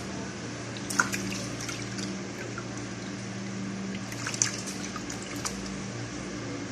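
Wet splashes and drips of water as a raw octopus is handled and rinsed, with a few sharper splashes about a second in and again past the middle, over a steady low machine hum.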